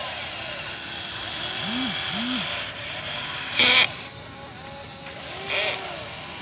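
Electric motors of a Huina 580 RC excavator whining as they drive its movements, the pitch rising and falling in short swells as they speed up and slow down. Two short, loud noisy bursts cut in, the louder one about three and a half seconds in, the other about two seconds later.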